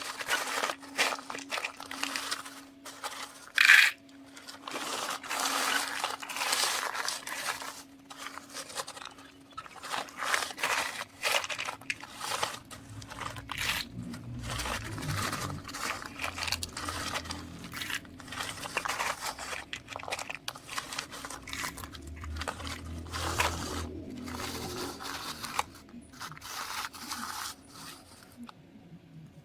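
Loose shelled corn being scooped and shifted: irregular dry crunching and scraping, over a faint steady hum, with a deeper rumble through the middle.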